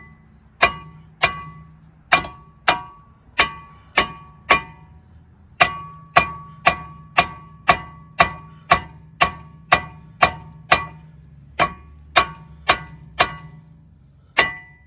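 Hammer blows on a car's brake rotor, about two a second with a couple of short pauses, each strike ringing out briefly: knocking the rotor to break it loose from the hub.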